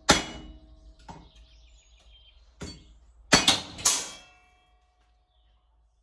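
Hand hammer striking a steel bar on an anvil to draw out its end: about six uneven blows, the last three close together with the metal ringing on after them, then the sound cuts off suddenly. The bar has cooled too far, so it bounces about on the anvil under the blows.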